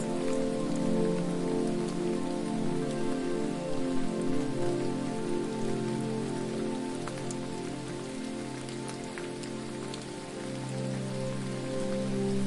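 Steady rushing water: an even hiss of falling water, with faint scattered drip-like clicks. Soft sustained low tones that shift in pitch like musical chords run beneath it.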